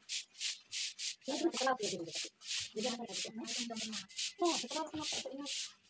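A hand mixing chopped meat with spices in a steel bowl: quick, even rubbing strokes, about four a second.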